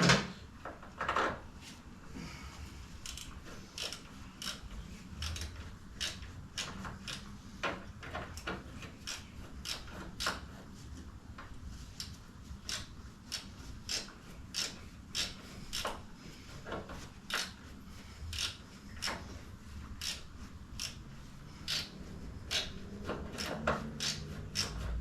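Hand ratchet clicking in short, irregular strokes, about one or two clicks a second, as it works a fastener.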